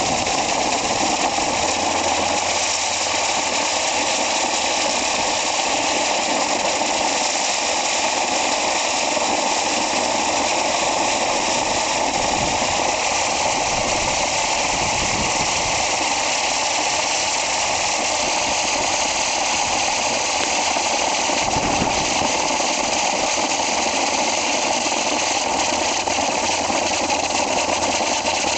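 Fiery Eye spinning firework wheel burning, with a steady hiss as it whirls and throws sparks.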